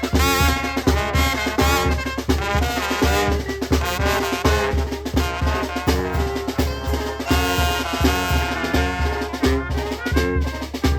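Live band music: brass instruments playing a lively melody over drums keeping a steady beat.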